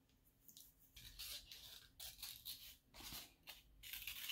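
Faint, irregular snipping and rustling of scissors cutting construction paper, starting about a second in.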